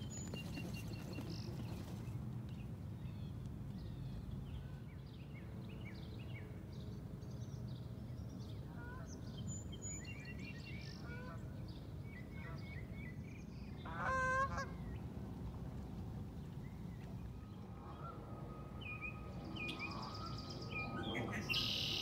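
A Canada goose honks once partway through, the loudest sound, over a steady low background rumble. Small songbirds chirp briefly here and there.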